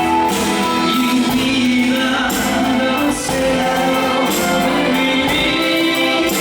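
A live band playing a song with singing.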